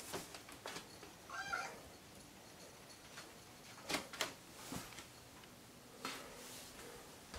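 A cat gives one short meow about a second and a half in, with a few soft knocks and rustles later on.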